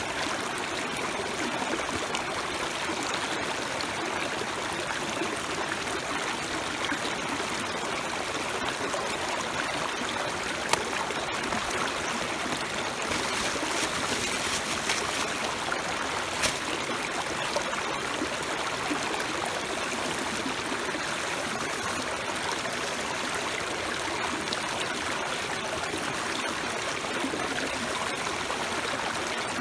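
Food sizzling on a thick iron griddle over a campfire: a steady hiss, with a few sharp crackles about eleven and sixteen seconds in.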